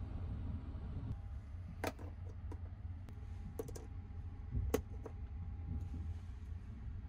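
A few sharp plastic clicks as a small USB charger's prongs are fitted and pushed into a two-pin wall socket, the loudest a little under five seconds in. Under them runs a steady low rumble from the sleeper train.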